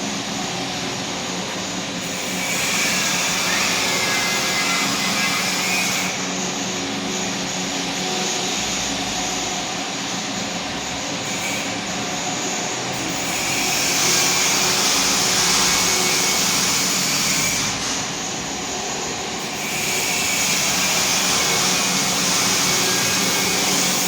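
Niigata universal milling machine running under power: a steady motor and gear-drive hum under a broad hiss. It grows louder three times, with a high whine, for a few seconds each.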